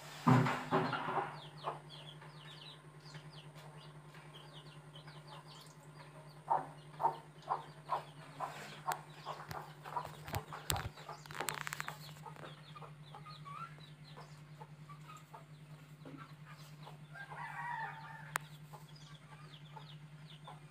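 Short clucking animal calls, with a run of them about two a second partway through and a few scattered elsewhere, over a steady low hum; a louder burst just after the start.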